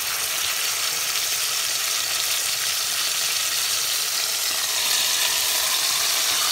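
Raw pork sizzling steadily as it sears in hot oil with fried garlic in a stainless steel pot. The sizzle gets a little louder about five seconds in.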